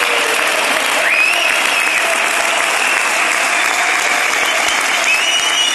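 Crowd applauding: steady, dense clapping from a packed stand. A thin, high held tone rises above it about a second in and again near the end.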